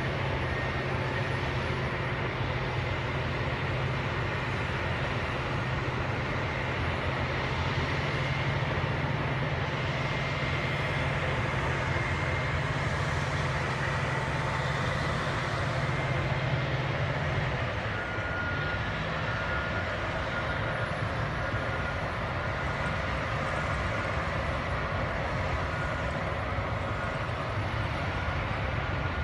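Diesel engines of crawler bulldozers pushing dirt, a steady low drone with a faint high whine above it. The engine note shifts about two-thirds of the way through.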